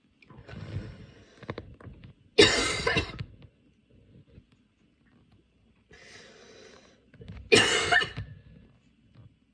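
A woman with a cold coughing: two loud coughs about five seconds apart, each preceded by a noisy breath.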